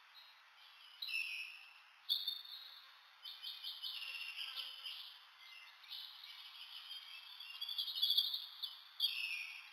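A bat squeaking while held in the hand: several bursts of rapid, high-pitched chirping, loudest shortly before the end.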